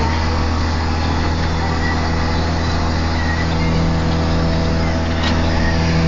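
Farm tractor engine running steadily, heard from inside the cab.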